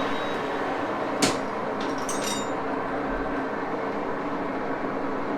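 Axelson metal lathe running with a steady machine drone. One sharp clack comes about a second in, and a few light ticks follow about a second later.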